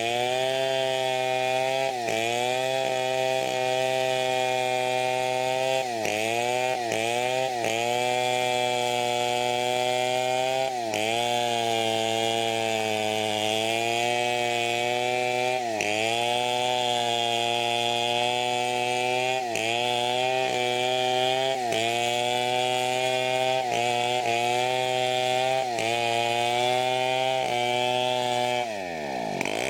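Stihl chainsaw running near full throttle while ripping teak lengthwise along the grain. The engine pitch sags briefly under load every second or two and recovers, and near the end it drops sharply as the throttle comes off, then revs back up.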